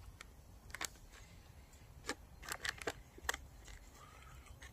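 Chewing a bite of cold bockwurst sausage: a few faint, sharp mouth clicks, most of them bunched around the middle, over a low steady rumble.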